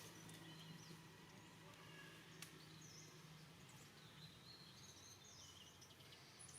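Near silence: faint outdoor ambience with a steady low hum and several faint, short high chirps, and a single soft click about two and a half seconds in.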